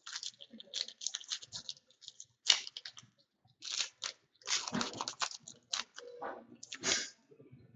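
Foil wrapper of a trading-card pack being torn open and crinkled by hand: a run of sharp crackling rustles with short pauses between them.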